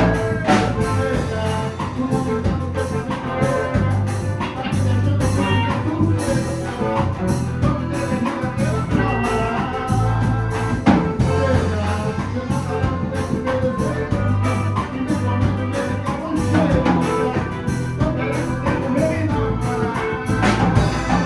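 A band playing live music with a drum kit keeping a steady beat under bass and melodic instruments.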